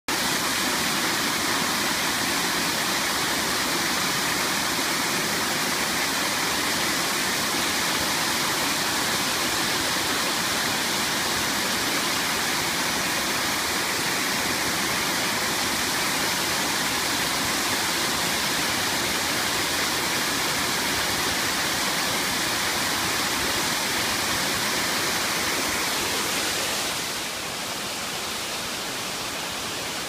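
Water pouring down a stepped stone waterfall: a steady, loud rushing noise, turning a little quieter and duller near the end.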